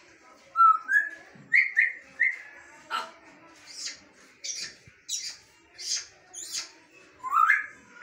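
African grey parrot calling. It gives several short rising whistles, then a string of short, high scratchy calls about every 0.7 seconds, and a loud rising whistle near the end.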